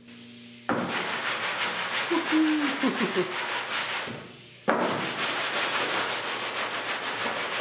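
Sandpaper rubbed by hand over a steel car body panel in quick back-and-forth strokes, starting about a second in and stopping briefly about four seconds in before it resumes.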